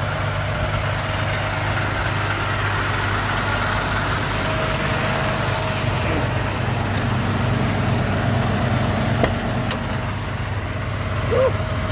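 Semi-truck diesel engine idling: a steady low drone.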